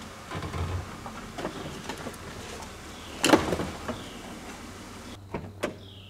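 Car door being unlatched and pushed open from inside, with sharp clicks near the end, after a single loud thump about halfway through.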